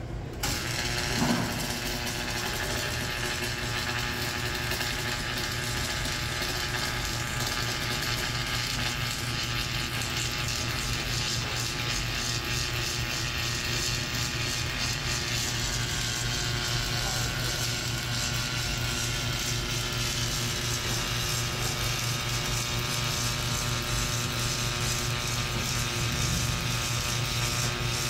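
OTC Automelt submerged arc welding tractor striking its arc under the flux about a second in, with a short loud crack, then welding steadily: a constant low hum with an even hiss over it as the wire feed and carriage drive along the joint.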